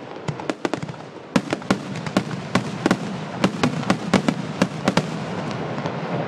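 Fireworks display: an irregular string of sharp bangs and pops, several a second, over a steady crackle.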